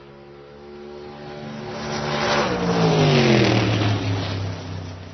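A car passing at speed: its engine note swells as it approaches, peaks about three seconds in and drops in pitch as it goes by, then fades away.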